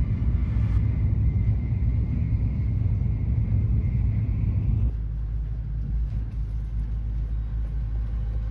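Steady low rumble of a Shinkansen bullet train in motion, shifting abruptly to a smoother, deeper rumble about five seconds in.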